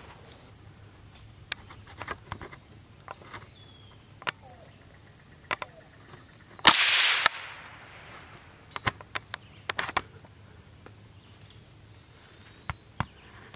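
Insects keep up a steady high-pitched drone, broken by scattered light ticks and clicks. About halfway through, a single sudden loud crack-like burst lasts about half a second and cuts off sharply.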